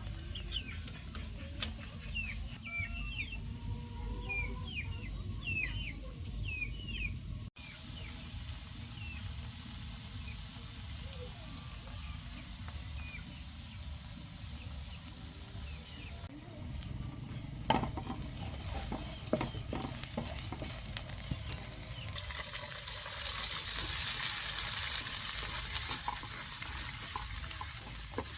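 Birds chirping in quick repeated calls for the first several seconds. After a sudden cut come a few clinks and clatters, then food sizzling as it fries in a pan, the sizzle growing louder near the end.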